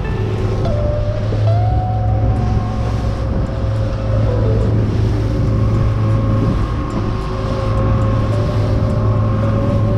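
Open fishing boat's engine running steadily at cruising speed, with water rushing and spraying along the hull.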